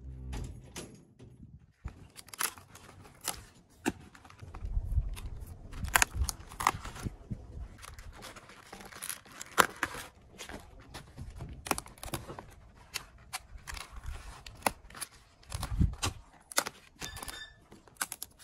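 Crisp cabbage leaves crackling, squeaking and rustling as hands grip and handle a cabbage head, with many sharp clicks and a few dull handling thumps.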